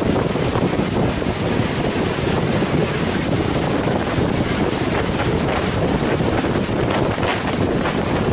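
Strong wind buffeting the microphone: a steady, rough rush of wind noise.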